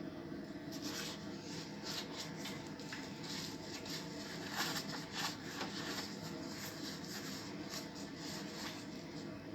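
Irregular rubbing and scratching strokes, some louder near the middle, over a steady low hum.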